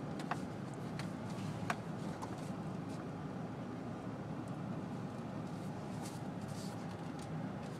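Steady engine and road noise inside a moving car's cabin, with a couple of light clicks in the first two seconds.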